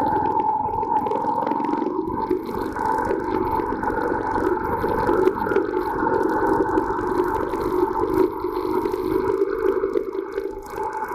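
Bajaj Boxer motorcycle's single-cylinder engine running steadily under way, a continuous drone with a steady whine and low rumble.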